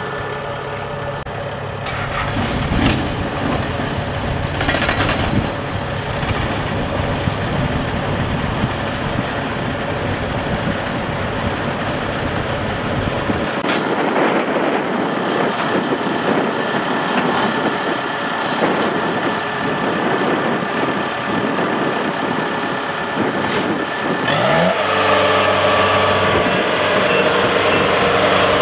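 Heavy machinery diesel engines running steadily. Near the end one revs up and holds a higher, louder steady note.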